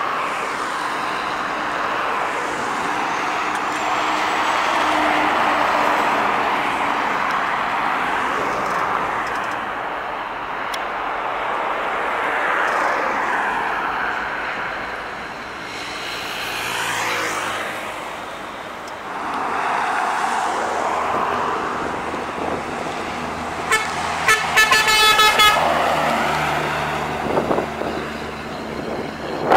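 Heavy trucks passing on a highway, their tyre and engine noise rising and falling as each goes by. About 24 seconds in comes a quick series of short vehicle-horn toots.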